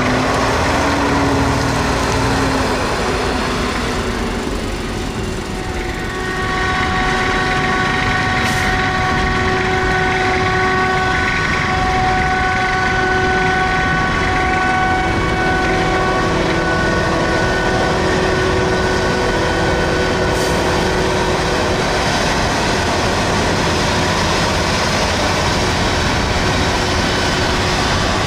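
Forage harvester chopping maize: loud, steady machine drone. A brief dip about five seconds in is followed by a steady whine made of several tones.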